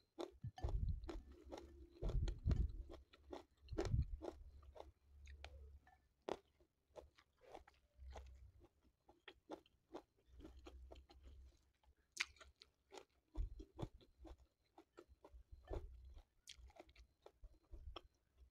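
Close-up chewing and crunching of raw round green eggplant and rice, with many sharp wet mouth clicks throughout and heavier crunching in the first few seconds.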